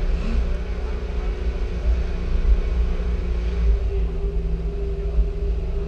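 Car engine running steadily at low speed with a deep rumble, its pitch shifting slightly a little past halfway.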